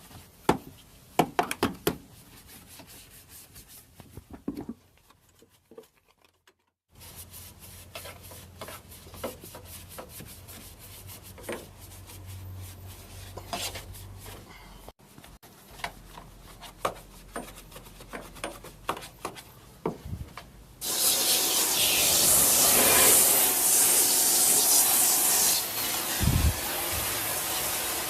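Brushing and rubbing in a car's engine bay, with scattered scrapes and clicks. About three quarters of the way through, a loud, steady spray hiss starts and keeps going, with a dull thump near the end.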